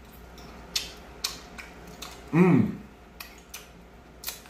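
A man eating, with a few sharp mouth and cutlery clicks, and a short hummed "mmm" of enjoyment about halfway through, the loudest sound.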